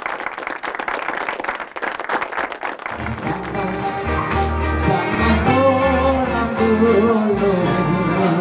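A live band with horns strikes up about three seconds in, with a steady bass line under a melody. Before it comes a spell of clapping and hall noise.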